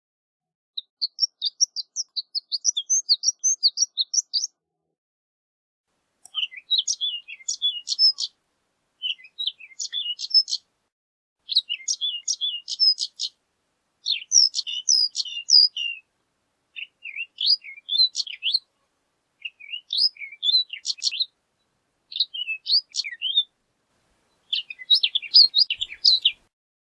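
Horned lark singing: a series of short phrases of rapid, high twittering notes, each phrase one to two seconds long with brief pauses between. The first phrase is longer and a little higher.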